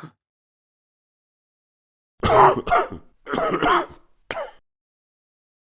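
A man coughing: a fit of three coughs about two seconds in, the first the loudest and the last a short one.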